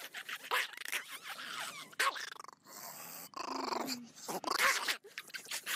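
Small long-haired dog growling on and off while being held and hugged.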